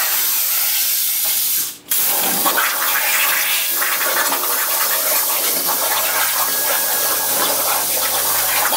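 Hypertherm Powermax65 plasma torch on a CNC table cutting 3/16-inch mild steel: a loud, steady hiss of the plasma arc and its air. Close to two seconds in the sound drops out for a moment, then the hiss resumes at full strength.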